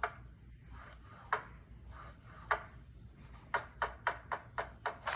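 Sharp wooden knocks of a cabinet door being pushed open and shut, a sound effect in an animated story played through a device's speaker. They come about a second apart, then quicken to several a second near the end as the unbolted cabinet rocks toward falling.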